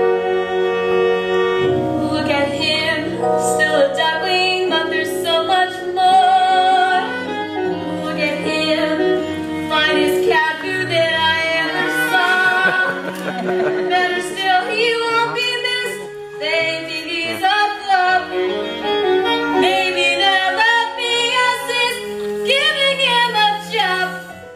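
Stage musical number: a woman singing over instrumental accompaniment, with long held chords underneath.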